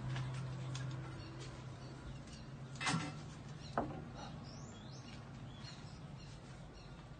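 Faint high chirps and scattered ticks over a low steady hum, with two sharp clicks about three and four seconds in.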